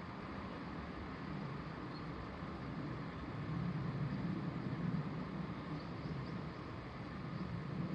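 Low, steady rumble of road traffic, swelling a little about halfway through as a vehicle goes by.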